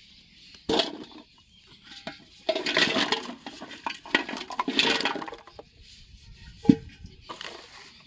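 Empty plastic bottles clattering and sliding out of an aluminium cooking pot tipped over onto grass, in several bursts. A sharp metallic clank with a short ring comes from the pot about two thirds of the way in and is the loudest sound.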